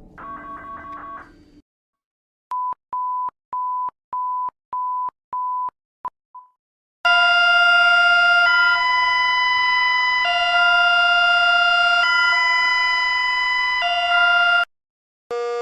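Electronic emergency alert tones: six short beeps at one steady pitch, about two a second, then a loud alarm of several tones sounding together whose pitches step every second or two. Near the end a siren starts, rising in pitch.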